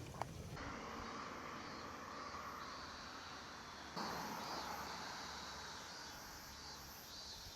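Steady outdoor background noise, a low hum with faint chirring over it, that changes abruptly twice.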